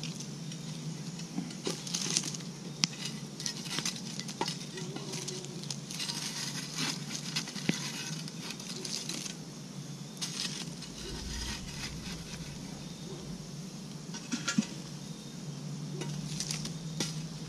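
Hot campfire coals being picked out with metal tongs and dropped onto a cast-iron Dutch oven lid: irregular scraping, clinks and light taps of metal on coals and iron, over a steady crackle and hiss of the burning fire.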